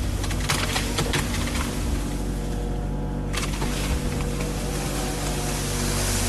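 Kubota mini excavator's diesel engine running steadily, with several sharp knocks in the first half and another about three seconds in.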